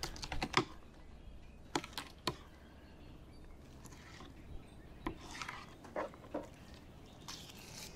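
Knife skinning a grouper fillet on a plastic cutting board: faint scraping with a scattering of short clicks and taps.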